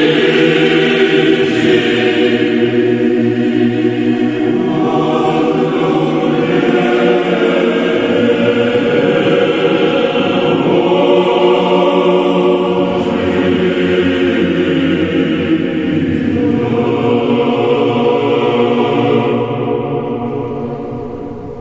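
Choir singing slow Orthodox church chant in sustained chords, with the low notes shifting every few seconds; it fades out near the end.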